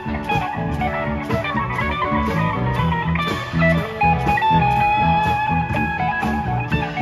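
Live rock band playing an instrumental passage: electric guitar lines over bass, drums and keyboard, with a steady cymbal beat.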